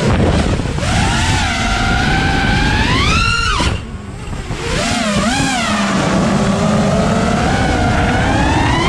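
FPV freestyle quadcopter's brushless motors whining, the pitch swooping up and down with the throttle. The motors ease off briefly about four seconds in as the quad flips over, then spool back up to a long, steady high whine, with a rushing noise underneath.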